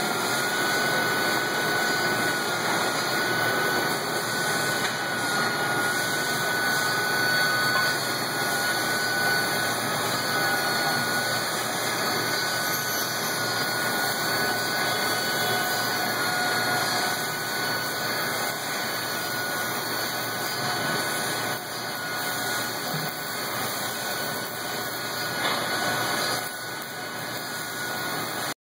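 Pneumatic drill on a robot arm running steadily as it bores holes into a foam pad: a continuous noisy whir with a faint steady high tone, dropping slightly in level near the end.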